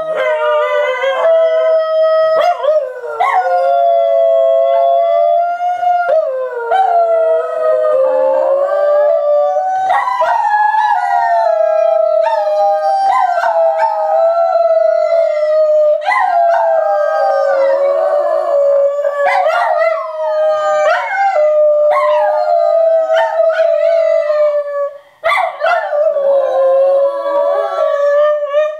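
Three miniature schnauzers howling together, a parent and its offspring: long drawn-out howls at different pitches, overlapping almost continuously, with a short break near the end.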